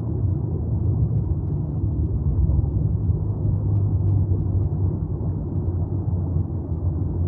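Underwater ambience sound effect: a steady low rumble with nothing high in it.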